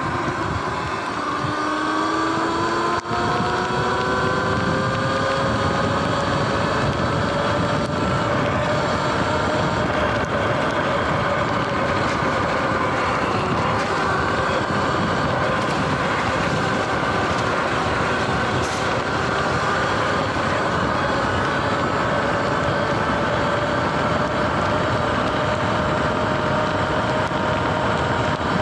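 Sur-Ron electric dirt bike riding at speed: the motor and drivetrain whine climbs in pitch over the first several seconds as it accelerates, then holds fairly steady. A constant rush of wind and tyre noise runs beneath it.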